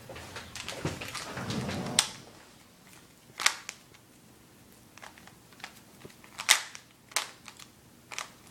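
Rubik's cube being twisted by hand: sharp plastic clicks and clacks at irregular intervals, with a rustle of handling in the first two seconds.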